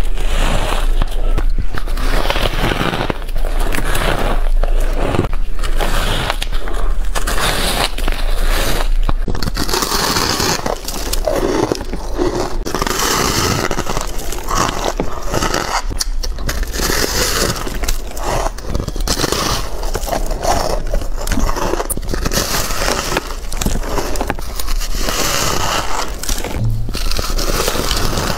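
Close-miked crunching and crackling of packed shaved ice being bitten and chewed, bite after bite.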